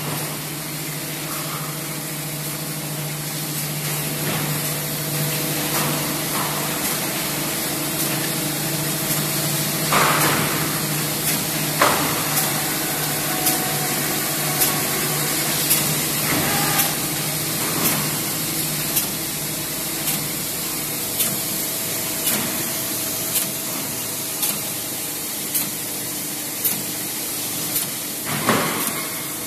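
LJT 4D250HLC paper core making machine running: a steady mechanical hiss and hum, with a sharp click about once a second from about a third of the way in.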